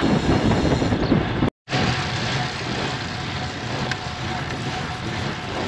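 Wind rushing over the microphone of a GoPro action camera riding on a moving road bike, mixed with tyre and road noise. The sound cuts out completely for a moment about one and a half seconds in, then carries on.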